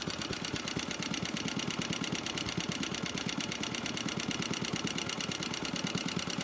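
1948 Clinton 702-ABR6 single-cylinder small engine running steadily, with a rapid, even string of firing beats.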